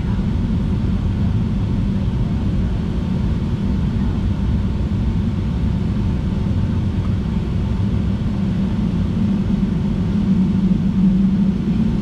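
Jet airliner's engines running at idle on the ground, heard inside the passenger cabin as a steady low rumble. The rumble swells slightly about ten seconds in.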